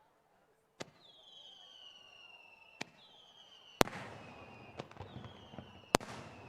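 Fireworks display: sharp bangs of bursting shells, four in all, with long whistles that fall slowly in pitch running up to the bangs, and crackling after the loud bang near four seconds.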